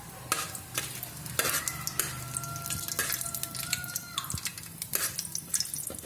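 A metal spoon stirring and scraping in a pressure cooker pan, with sharp clinks against the metal over the sizzle of food frying in hot oil. A drawn-out scraping tone runs through the middle.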